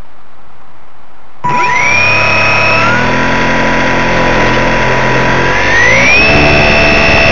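RC Super Cub model plane's motor starting abruptly and running with a steady whine, then climbing in pitch as the throttle is opened near the end.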